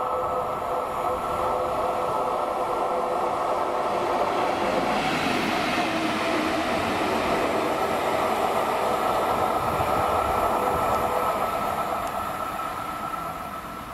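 Colas Rail Class 70 diesel locomotive (70806) running through and passing close by. A steady high whine sits over the engine and wheel noise. The rush of the passing locomotive swells about five seconds in and eases off near the end.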